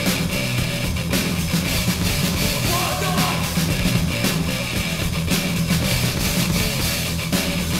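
Death/thrash metal recording playing: distorted electric guitars, bass and a drum kit going without a break.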